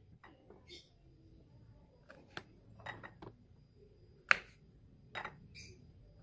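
Kitchen knife knocking against a wooden cutting board while slicing petai beans. There are a few separate sharp knocks, and the loudest comes about four seconds in.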